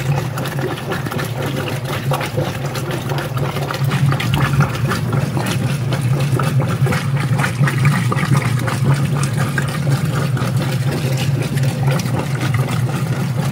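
Whirlpool direct-drive top-load washing machine agitating on its slow, gentle low-agitation speed: a steady motor hum with water churning in the tub.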